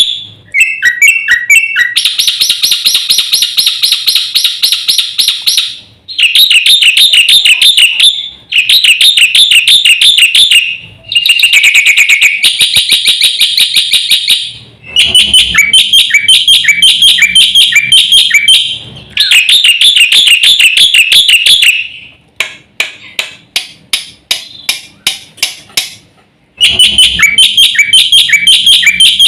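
Black-winged myna (jalak putih) singing loudly: long runs of rapid, repeated chattering phrases broken by brief pauses, with a spell of separate sharp staccato notes about two-thirds of the way through.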